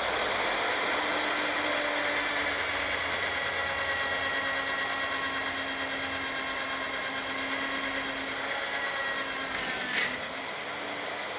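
Magnetic drill boring a hole through a steel I-beam, its motor running steadily under load while the cutter works through the steel, with a brief sharp sound near the end.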